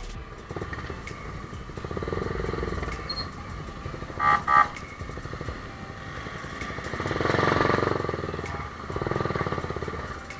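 Road traffic with motorcycle engines running and passing close, rising and fading twice in the second half. Two short horn beeps sound close together about four seconds in.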